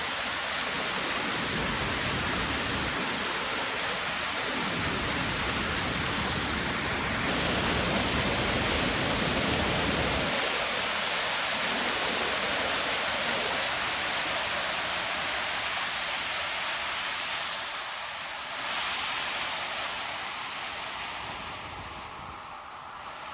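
Waterfall running strongly: a steady rush of falling water, with a low rumble added for several seconds in the first half.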